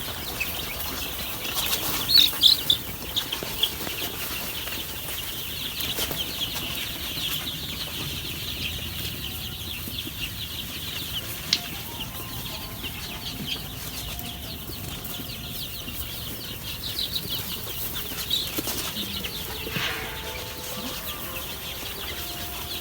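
A brood of week-old chicks peeping continuously in many overlapping high, rapid chirps, with a few louder cheeps about two seconds in.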